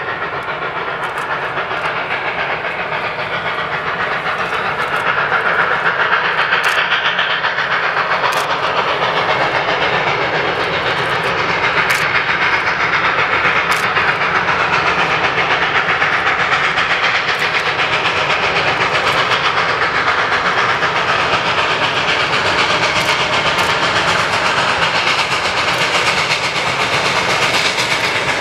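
Western Maryland Scenic Railway steam locomotive No. 734, a 2-8-0, approaching under steam: a steady rush of exhaust and hiss with sharp clicks, growing louder about five seconds in and then holding steady.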